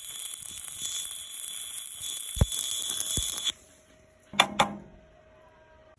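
Electric arc welding: a steady crackling hiss with a high tone as the sidewheel mount is fully welded. The arc stops about three and a half seconds in, followed by two sharp clicks.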